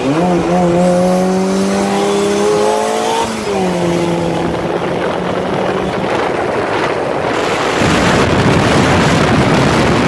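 Car engine accelerating hard, revving up through a gear, then dropping in pitch at a gearshift about three and a half seconds in and pulling on. Loud wind and road noise builds over the last couple of seconds.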